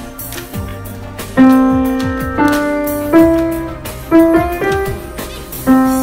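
Liebermann upright piano played slowly: single notes struck roughly once a second and left to ring and fade, picking out a simple melody.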